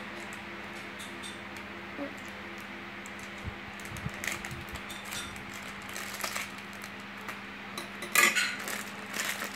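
Small scissors clicking and snipping as they cut through a soft glittery toy piece, with a louder rustle about eight seconds in, over a faint steady hum.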